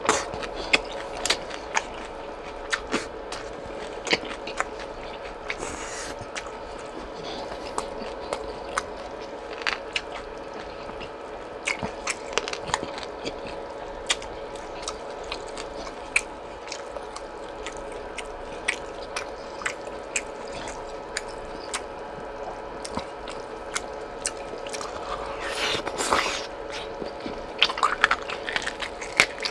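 Close-miked chewing of boiled pork slices: wet, sticky mouth sounds with many small sharp clicks, and a couple of louder, noisier bites about six seconds in and near the end. A steady faint hum runs underneath.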